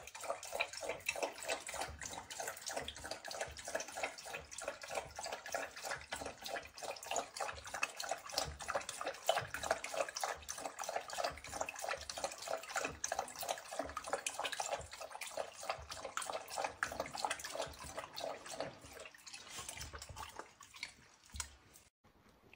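A dog lapping water from a plastic bowl in quick, even laps, thinning out near the end.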